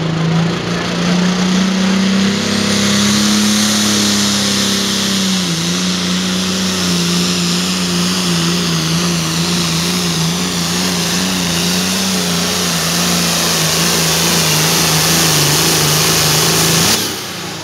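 Hot Farm class diesel pulling tractor at full throttle under load, pulling the sled. The engine pitch rises a little, dips about five seconds in, then holds steady with a slight wobble over a loud hiss, and falls off sharply near the end.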